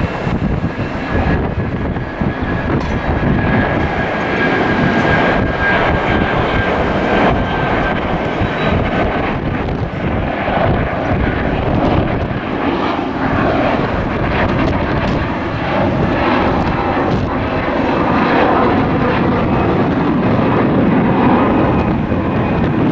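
Airbus A330-300 jet airliner climbing out after takeoff, its two turbofan engines at climb thrust giving a steady, loud jet roar. A faint high whine sits over it in the first few seconds.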